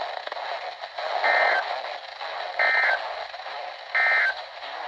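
Three short two-tone data bursts from a NOAA Weather Radio broadcast, about 1.4 seconds apart, over steady radio hiss. This is the SAME digital code sent three times at the end of an alert message.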